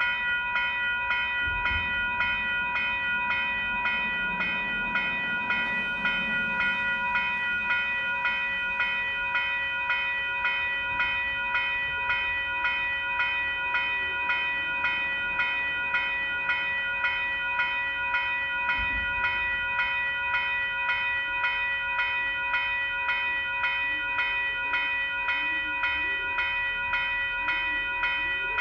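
WCH type 3 electronic crossing bell on a railroad grade crossing signal, ringing continuously with rapid, evenly spaced strokes: the crossing warning is active.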